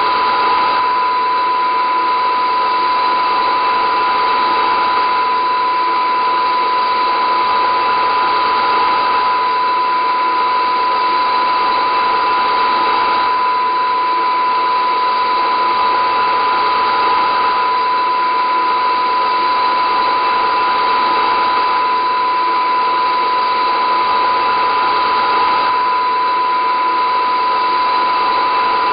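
A loud, unchanging drone of dense, even noise with a constant high steady tone running through it.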